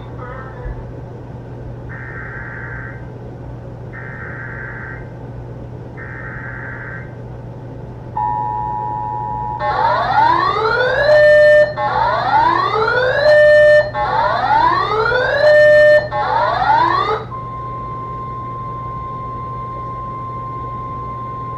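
Emergency Alert System tones: three short data bursts of the digital alert header, then the two-tone attention signal briefly, then four rising, whooping alarm sweeps, and finally a steady single-pitched alarm tone of the kind NOAA Weather Radio sounds before a warning.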